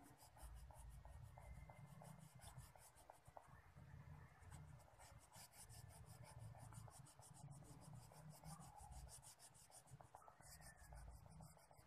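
Faint scratching of a crayon rubbed back and forth across paper in quick repeated strokes, colouring in an area.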